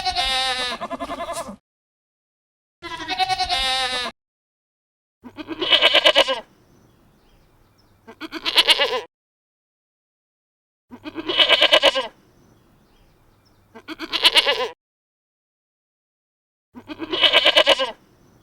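Bleating calls: two wavering, pitched bleats near the start, then after a pause a run of harsher, pulsed bleats coming in pairs a few seconds apart.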